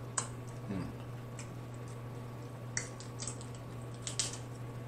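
Close-up wet eating sounds: mouth clicks and smacks while chewing Dungeness crab dipped in sauce, a sharp click every second or so. Near the end the crab shell is handled and cracked with a short cluster of clicks. A steady low hum runs underneath.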